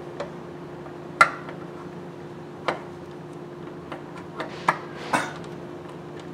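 Light metallic clinks and knocks as a new aluminium oil pump and its drive chain are handled into place against the engine block, a handful of separate hits with the loudest a little over a second in. A steady low hum runs underneath.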